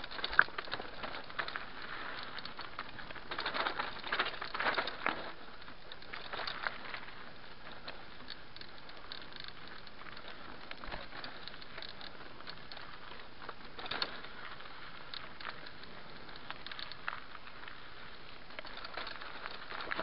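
Mountain bike rolling downhill on a trail: tyres crunching over rocks and dirt with a clatter of knocks and rattles from the bike, busiest over the first few seconds on the rocky section and steadier once the track turns to dirt.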